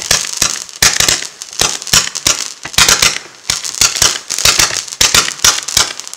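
Firework battery (cake) firing a rapid series of shots, several sharp bangs a second over crackling sparks, with a brief lull about three seconds in.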